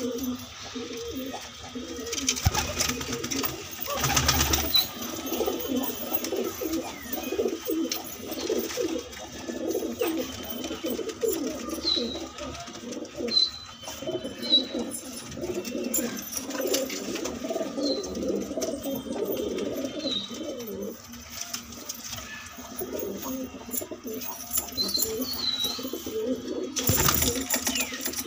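Several domestic pigeons cooing over one another without pause, with a few short high chirps among them. Brief louder noises come a couple of seconds in and again near the end.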